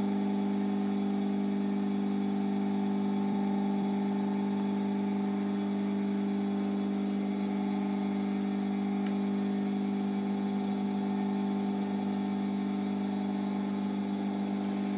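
Steady electric motor hum at one unchanging pitch, with no break or rhythm.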